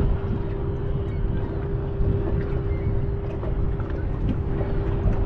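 Boat motor running with a steady, even hum over a low rumble.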